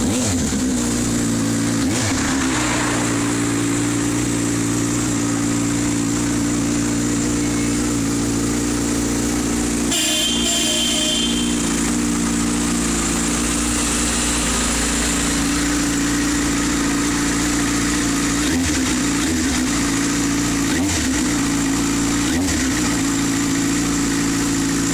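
Yamaha Fazer 600's inline-four engine idling through an Arrow aftermarket exhaust, with short throttle blips that rise and fall in pitch once about two seconds in and four times near the end. A brief higher-pitched sound about ten seconds in.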